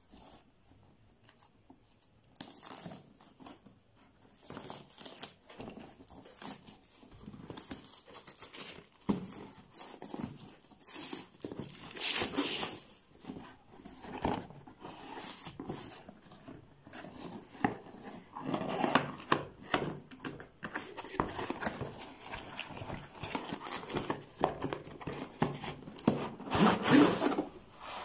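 Plastic shrink wrap being torn and crinkled off a cardboard box, with irregular rustling and scraping of cardboard and plastic as the box is opened. It starts after a near-quiet second or two, with louder bursts of tearing and crinkling about halfway through and again near the end.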